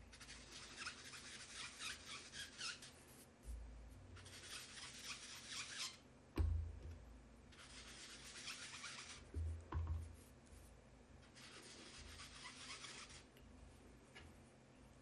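Foam sponge dauber rubbed over cardstock to apply ink, in four scrubbing bouts of about two seconds each with short pauses. A dull thump about six seconds in and a couple more near ten seconds.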